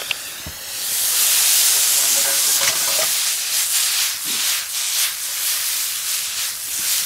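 Vegetable hash sizzling and hissing hard in a hot skillet after a splash of stock, the hiss swelling about a second in. A few light knocks as the pan is lifted and tossed.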